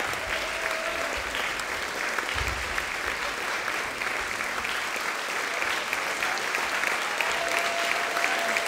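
Audience applauding steadily: a dense patter of many hands clapping at an even level.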